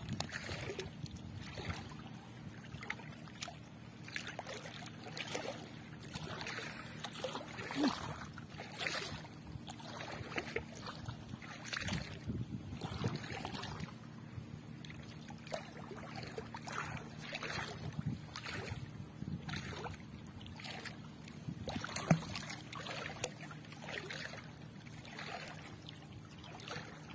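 Water splashing and dripping as a wet fishing net is hauled out of the water by hand, in short irregular splashes, over a steady low hum.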